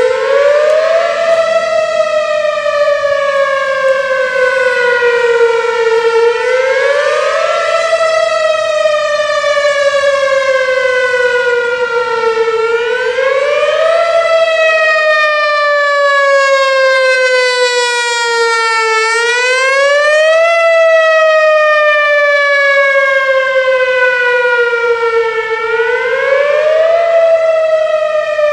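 Whelen Vortex 'Finback' electronic outdoor warning siren sounding its wail test tone, very loud. The pitch repeatedly climbs quickly for about a second and then slides slowly down over about five seconds, a cycle roughly every six and a half seconds.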